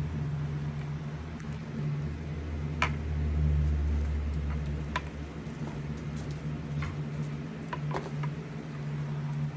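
A handful of scattered light clicks and taps as a kitten bats a plastic cat toy, knocking its ball-on-a-wire and plastic dome. A steady low hum runs underneath.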